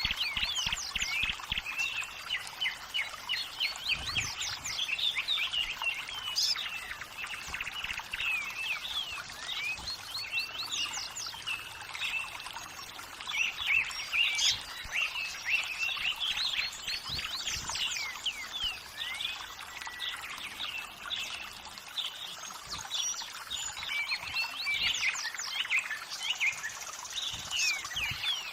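Birds chirping and singing in quick, overlapping calls over a steady rush of running water.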